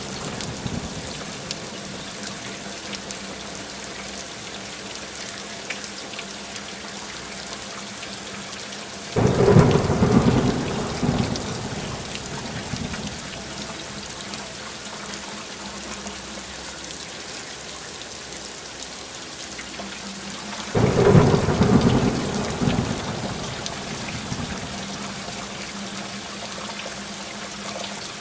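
Steady rain falling, with two rolls of thunder, one about nine seconds in and another about twenty-one seconds in, each starting suddenly and dying away over a few seconds.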